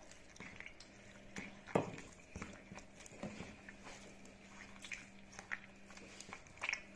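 Soft, irregular wet squishing and small clicks of fingers breaking up and dissolving sourdough starter in water in a well of flour, over a faint steady hum.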